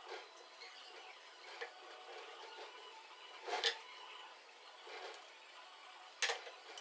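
A few sharp wooden knocks and clicks as a small wooden frame is handled, shifted and turned over on a workbench while oil is wiped into it with a rag; the loudest knock comes about halfway through, and two more come close together near the end.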